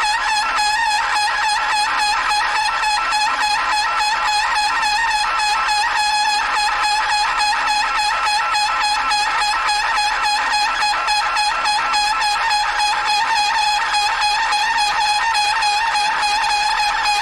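Tool bit chattering while turning a steel bar on an old belt-driven South Bend lathe: a loud, steady pitched squeal with a fast warble. The chatter comes from the bit sticking too far out of the tool holder.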